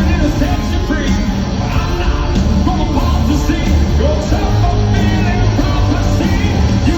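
Hard rock band playing live, a singer over loud guitars, bass and drums.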